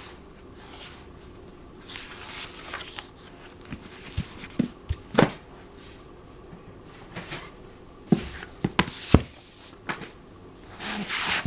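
Old hardcover books being handled: paper and covers rustling and swishing, with a few sharp knocks between about four and nine seconds in as books are closed and set down on the table.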